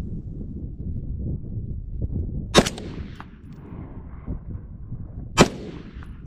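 Two shots from an LR308 (.308 AR-10-type) semi-automatic rifle, about three seconds apart, each with a sharp crack and a fading echo, fired with surplus ammunition on gas setting 8 of its adjustable gas block. The action cycles fully, and the bolt locks back after the last round.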